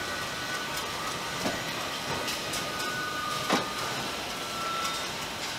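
Car assembly-line machinery running: a steady hiss with faint whining tones and a few clanks, the loudest about three and a half seconds in.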